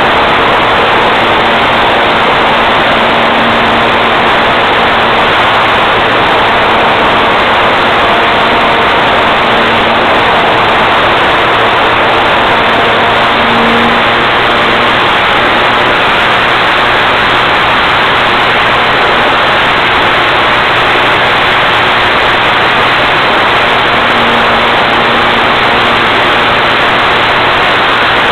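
Small aircraft in flight, heard from a camera on board: a steady loud rush of engine, propeller and wind noise, with faint humming engine tones that swell a few times.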